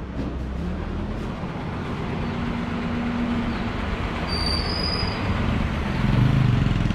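Heavy diesel truck engines running close by, a steady low rumble that grows louder near the end. A short high-pitched squeak sounds a little after four seconds in.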